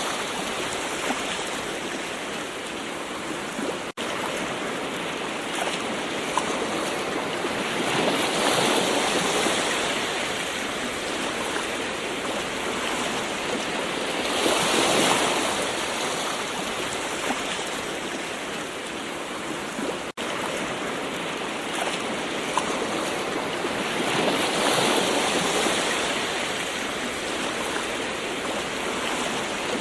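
Gentle ocean waves washing ashore, each surge swelling and easing back about every seven seconds, with two momentary dropouts in the sound.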